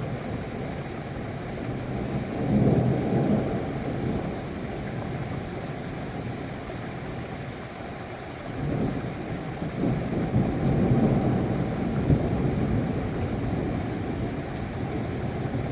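Thunderstorm: steady rain with low rolling thunder that swells twice, briefly about two seconds in and again for several seconds from about halfway.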